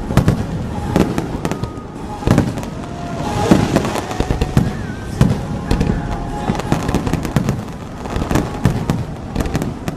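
Fireworks display going off in quick, irregular succession: deep booming bursts mixed with sharp crackles, with a thicker hissing, crackling spell about three to four seconds in.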